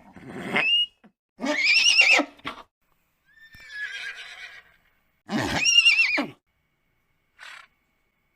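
Horse whinnying, four separate calls, each rising then falling in pitch, the loudest two about one and a half and five and a half seconds in, followed by a short snort near the end.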